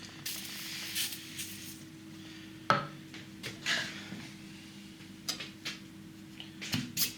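A hiss of aerosol spray lubricant lasting about a second and a half, then a few sharp metal clinks and knocks as tractor cylinder-liner parts are handled.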